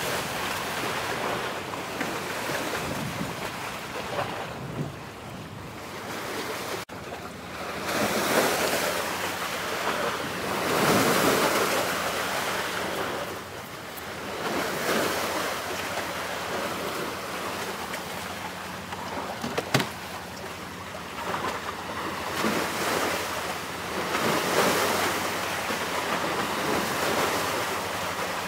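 Sea waves washing in, swelling and fading every few seconds, with wind rumbling on the microphone. A single sharp click comes about twenty seconds in.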